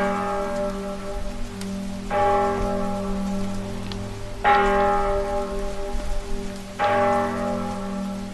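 A deep bell tolling, struck three times about two and a half seconds apart, each stroke ringing on and fading, over a steady hiss of rain; the ringing cuts off near the end.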